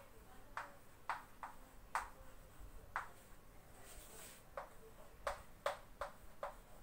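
Chalk writing on a chalkboard: about ten faint, sharp, irregularly spaced taps as the chalk strikes the board, with a short scratchy hiss about four seconds in.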